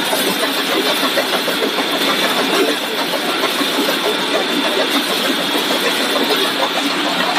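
Corn puff snack extrusion line running: steady, dense machine noise with a thin, constant high whine.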